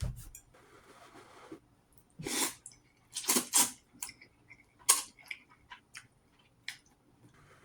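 Ramen being eaten close to the microphone: chewing, with a few short, loud slurps about two to five seconds in and smaller mouth clicks after them.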